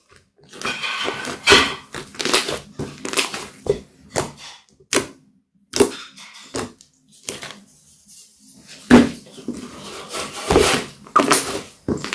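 Thick slime being kneaded, folded and poked by hand: wet squishing with sharp pops and clicks in irregular bursts, quieter for a moment a little past the middle, then a loud pop.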